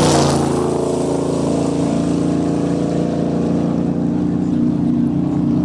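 Off-road race truck's engine running hard at a steady pitch, with a loud rushing noise fading in the first half second.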